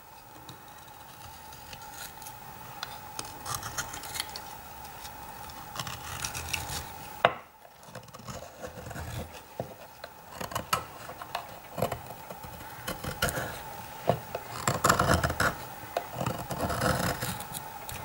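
Chris Reeve Large Inkosi folding knife shaving thin tinder curls off a dry wooden stick: irregular short scraping cuts of the blade through the wood, with one sharp click about seven seconds in.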